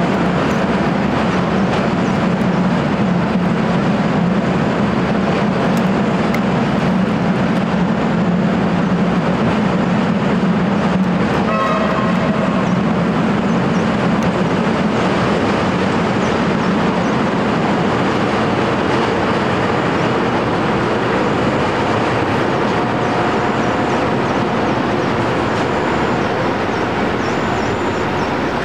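Heritage passenger train crossing a steel truss rail bridge: a steady, loud rumble and rattle of carriage wheels on the bridge, with a low hum that fades out about eleven seconds in. A short horn blast sounds around twelve seconds in, and the rumble eases slightly near the end as the last carriages clear the bridge.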